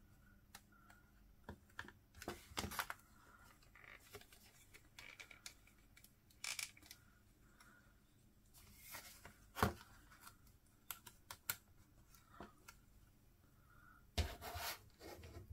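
Small die-cut cardstock pieces being handled on a craft table: faint, scattered rustles, taps and clicks with no rhythm, a few louder ones near the middle and near the end.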